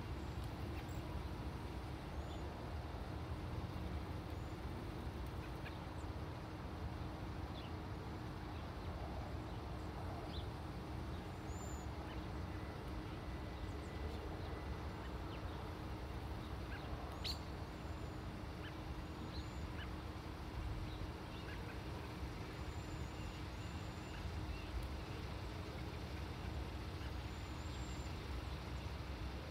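Steady low outdoor rumble with a faint steady hum under it. Faint, thin, high bird calls come now and then from small birds feeding in a crabapple tree, and there is one sharp click a little past halfway.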